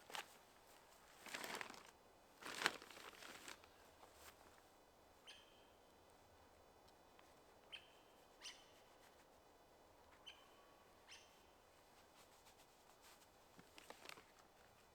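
Near silence broken by a few soft rustles and taps near the start and end, and several short, high chirps in the middle.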